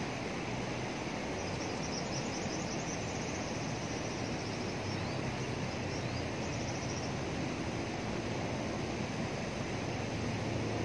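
Fast water rushing through a concrete sluice-gate channel: a steady, even rush. A faint high, rapid trill runs over it from about a second and a half in until about seven seconds in.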